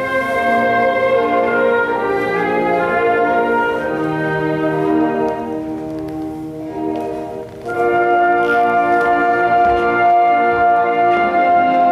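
Orchestral classical music with many sustained notes; it thins out and softens about six seconds in, then comes back in full about two seconds later.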